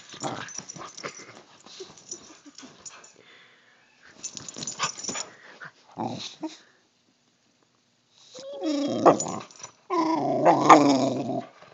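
Boxer dog scuffling and rustling on bed covers, then growling and grumbling in play in two drawn-out, wavering bouts in the second half.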